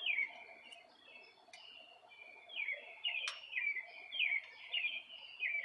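A bird chirping over and over in short falling calls, about one or two a second. Two sharp clicks, one about a second and a half in and a louder one just past three seconds, cut through the calls.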